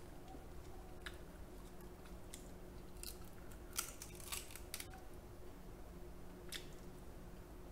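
Sharp clicks and cracks of a cooked king crab leg shell being broken and picked apart by gloved hands, close to the microphone, with a cluster of cracks around four seconds in, mixed with chewing.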